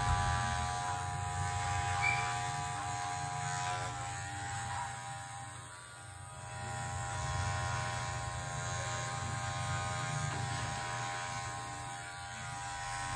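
Electric hair clipper running steadily with an even buzz while fading short hair at the side of the head, dropping in loudness around the middle and coming back.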